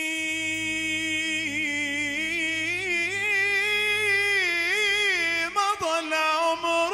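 Male voice singing Arabic Islamic devotional chant (inshad): one long held melisma whose pitch wavers and turns in ornaments, breaking into short sung syllables a little over five seconds in.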